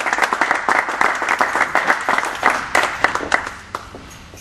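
Applause: many hands clapping densely, thinning out and stopping about three and a half seconds in, with a couple of last single claps after.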